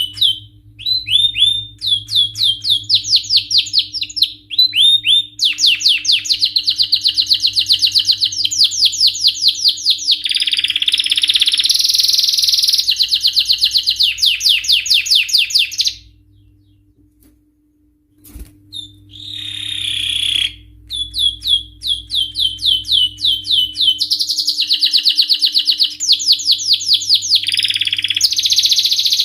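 Male canary singing a long song of rapid trills and repeated rising notes, breaking off for about two seconds in the middle before starting again.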